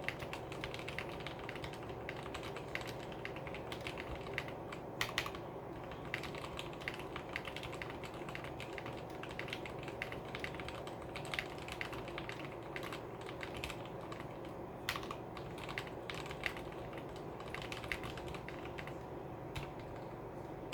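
Typing on a Tecware Phantom mechanical keyboard with lubed Outemu Red linear switches and clipped, lubed stabilizers: a steady run of key strokes, with a few louder strokes scattered through. The typing thins out near the end.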